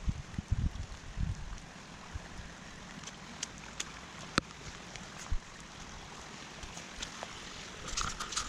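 Steady rushing hiss of water, with a few sharp ticks in the middle. There are low thumps in the first second and a half.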